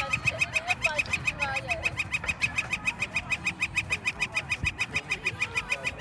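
Birds calling: a steady, rapid train of high chirps, about seven a second, with other pitch-sliding calls overlapping in the first two seconds.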